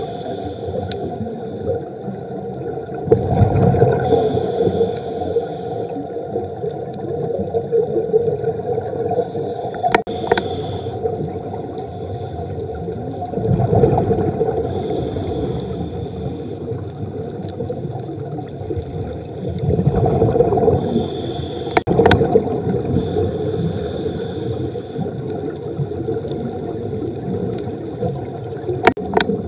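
Scuba regulator breathing heard underwater: a hiss on each inhale, then a rushing, gurgling burst of exhaled bubbles, repeating about every five to six seconds over a steady hum. Two sharp clicks break in, one near the middle and one later on.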